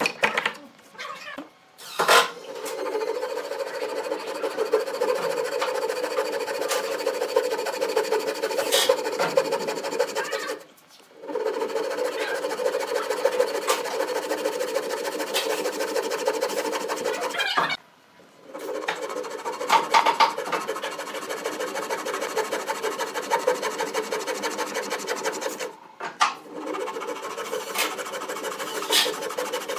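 Hand saw cutting through pine with fast, even strokes, a steady rasp that stops briefly three times and starts again. A sharp knock sounds about two seconds in.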